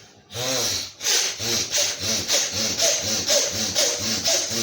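Rapid, forceful breathing in and out through one nostril at a time: alternate-nostril breathing combined with bhastrika pranayama, done at speed. It is a rhythmic rush of air at about two to three strokes a second, starting just after a short pause.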